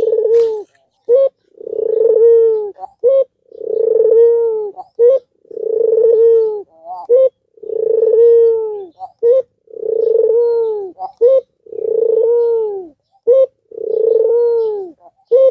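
Albino puter (domestic collared dove) cooing over and over with its head bowed: a long coo with a slight fall at the end, about every two seconds, each joined by a short clipped note.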